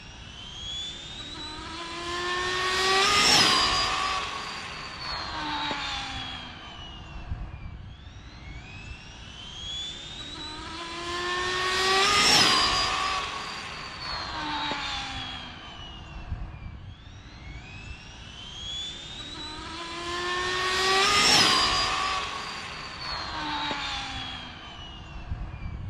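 Twin-motor Arrma Infraction RC car with two 1700 kV brushless motors making high-speed passes: a high motor whine rises in pitch as it approaches, is loudest as it goes by, and drops in pitch as it moves away. This happens three times, about nine seconds apart.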